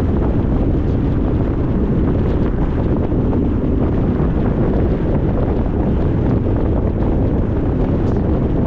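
Steady, even rushing noise, heaviest in the low end, with no changes: a relaxation white-noise bed.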